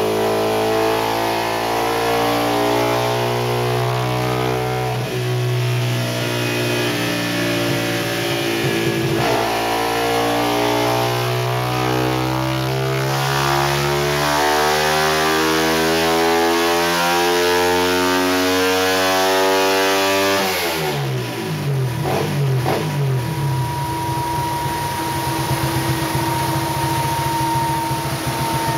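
Yamaha 135LC's single-cylinder four-stroke engine, with a 65 mm ceramic bore and a custom exhaust, making a full-throttle dyno pull. Its revs climb steadily for about twenty seconds toward 8,500 rpm. Then the throttle is shut, the revs fall quickly, and rougher low running with a steady whine carries on to the end.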